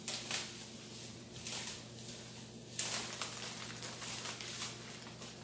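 Plastic packaging rustling and crinkling in irregular bursts as protective wrapping is pulled off a new stroller, over a steady low hum.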